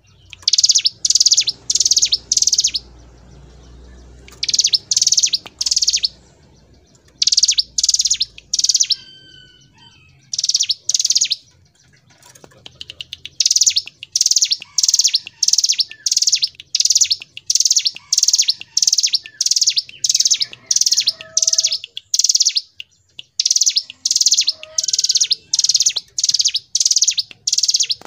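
Ciblek gunung (a mountain prinia) singing a long run of high, rapidly repeated chip notes, about two a second, in bursts broken by short pauses.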